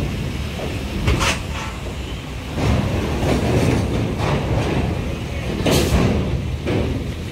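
Truck engines running with a steady low rumble as a loaded truck moves slowly past, with short sharp noises about a second in and twice near the end.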